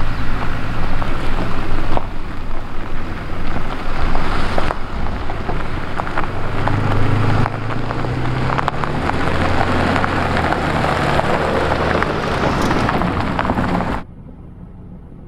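Mercedes-Benz GLE 350d SUV with its six-cylinder diesel driving slowly over a gravel track: tyres crunching on the gravel over a low engine hum, the engine note rising for a few seconds in the middle. Near the end the sound drops abruptly to a much quieter level.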